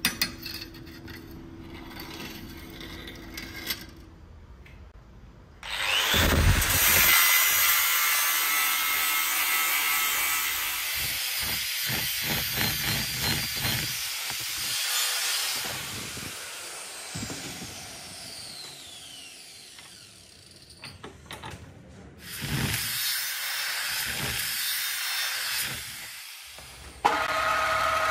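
Angle grinder cutting through a steel knife blank clamped in a vise. It comes in two long runs with a short break between. Near the end a belt grinder starts up with a steady hum.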